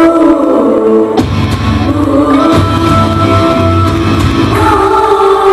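Live concert music over a loud PA: held chords with a deep bass that drops out and comes back in.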